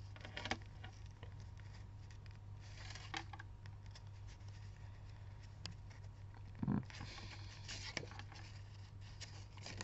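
Pieces of cardstock being handled and slid against each other: faint paper rustles and light taps, with one louder tap about seven seconds in. A steady low hum runs underneath.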